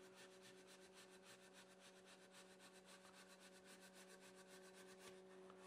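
Very faint rapid rubbing of a paper towel pressed against the Bambu Lab A1's Z-axis lead screw as the tool head is driven down, over a low steady hum; the rubbing stops about five seconds in.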